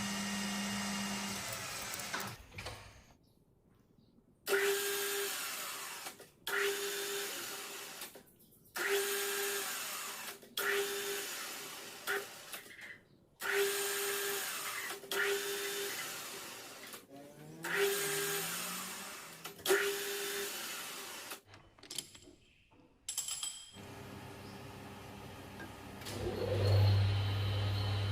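An electric power tool switched on in about nine short bursts. Each burst starts sharply and winds down over a second or two with a falling whine.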